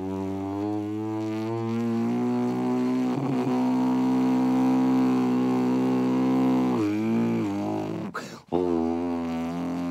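A man droning with his mouth: a steady, low, buzzing hum held on one pitch, bending briefly about seven seconds in. It breaks off for a quick breath a little after eight seconds in, then starts again.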